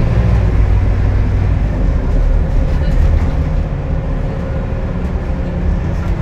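Scania K280UB bus's five-cylinder diesel engine and ZF Ecolife automatic gearbox running steadily while the bus drives along, heard from inside the passenger cabin; the bus is described as unhealthy sounding.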